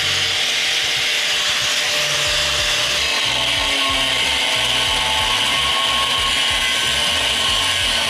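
Angle grinder cutting into the steel of an excavator's dozer blade, the spinning disc biting into the metal with a steady, unbroken shriek over the motor's whine.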